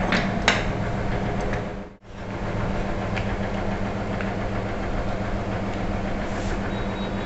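Steady low mechanical hum made of several even tones, with a brief dropout about two seconds in. A few sharp clicks near the start as the battery cable lug and terminal are handled.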